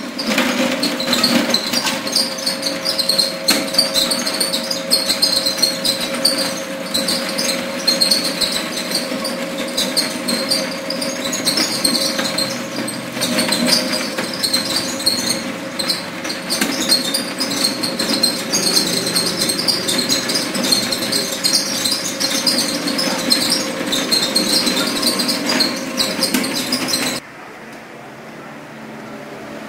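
Electric meat-shredding machine running: a steady motor hum under a busy high rattle. It cuts off suddenly near the end.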